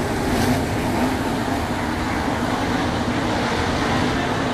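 Several 410 sprint cars' V8 engines running at racing speed together on a dirt oval, a loud, steady sound with no let-up.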